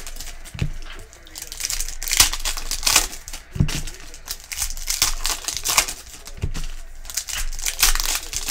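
Foil trading-card pack wrappers crinkling and tearing as they are ripped open by hand, in a run of irregular rustles.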